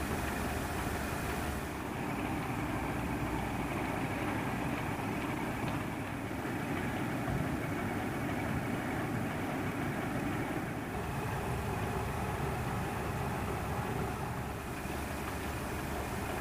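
British Rail Class 31 diesel-electric locomotive's English Electric engine running steadily.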